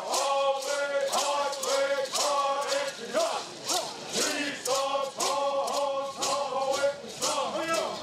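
Male voices singing a Native American bird song, with gourd rattles shaken in a steady beat about two to three strokes a second.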